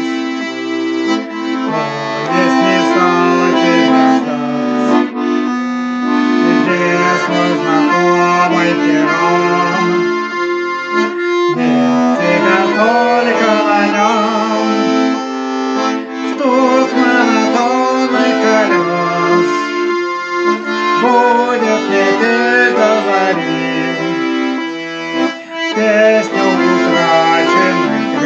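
Accordion playing an instrumental passage of a Russian song: a melody over sustained bass chords.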